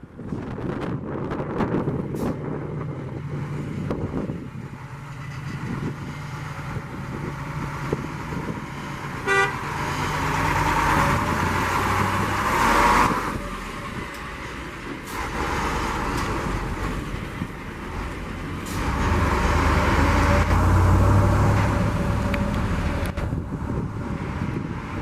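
KamAZ 53228 fire engine's diesel engine running, growing louder twice, with one short air-horn blast about nine seconds in.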